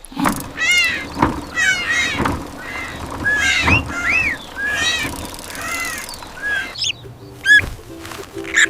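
Baby bird cheeping over and over: a run of short, high, arching peeps.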